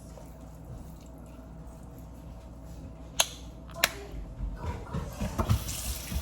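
Two sharp clicks about half a second apart, then handling noises on a kitchen counter and a kitchen tap starting to run near the end.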